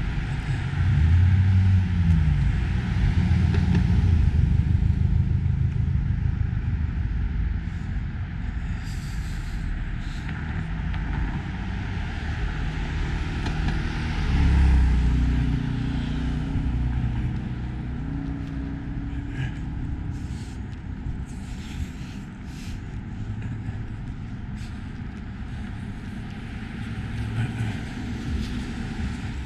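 Road traffic: cars driving past on a city street, engine and tyre noise swelling and fading. It is loudest about one to five seconds in and again around fourteen seconds, then settles to a lower steady drone.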